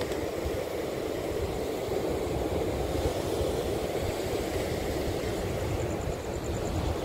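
Steady rushing of sea surf against the rocks, with wind buffeting the microphone.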